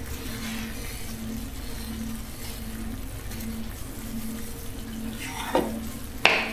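Tomato and vegetable stew simmering in a pan, giving a steady hiss, with a low hum that pulses under it. Two short scraping sounds near the end.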